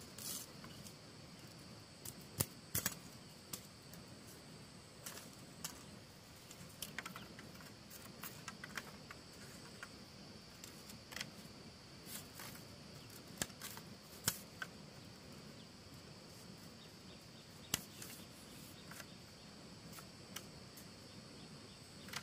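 Insects chirring steadily at a high pitch, with irregular light clicks and knocks scattered through, a few of them sharper than the rest.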